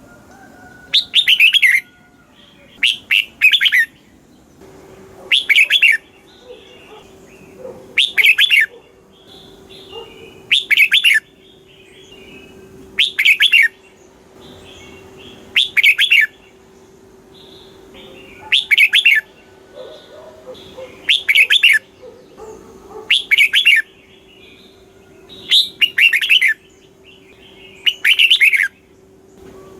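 Red-whiskered bulbul singing short, loud, bright song phrases, about a dozen of them, one every two to three seconds, with softer chirps between. A faint steady hum starts about five seconds in and lies underneath.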